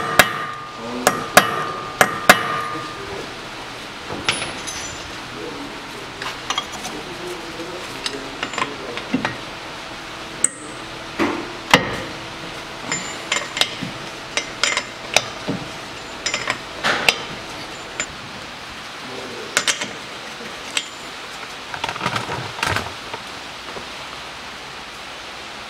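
A hammer striking a chisel to knock back the staked collar of the front drive-shaft (axle) nut on a Toyota RAV4 hub, so the nut can be undone. The sharp metallic blows come irregularly, about one or two a second, and the loudest blows ring in the first few seconds.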